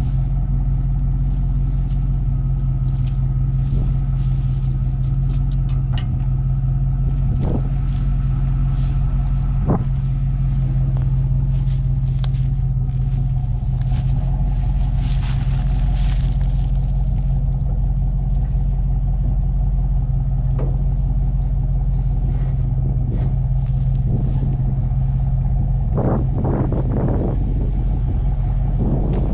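Pickup truck engine running steadily, a deep even hum, with a few short knocks and rattles, the loudest cluster near the end.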